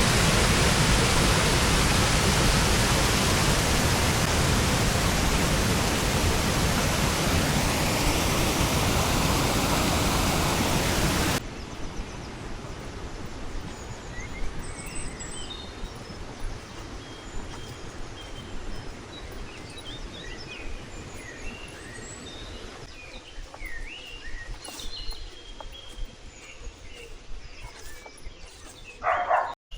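A loud, steady rush of noise cuts off abruptly about eleven seconds in. It gives way to quiet outdoor ambience with small birds chirping and singing, more and more often towards the end.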